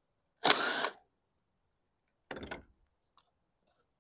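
DeWalt cordless driver with an 8 mm socket spinning for about half a second, its whine sweeping up in pitch, as it runs a bolt on the mower. A second, shorter and quieter burst follows a couple of seconds in.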